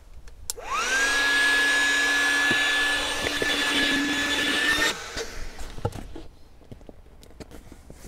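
Electric air pump inflating a camping bed: its motor spins up with a quickly rising whine about half a second in, runs with a steady high whine and rushing air, then cuts off suddenly just before five seconds in.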